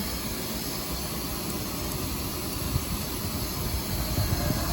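Steady machinery hum with a hiss over it, with no strokes or changes.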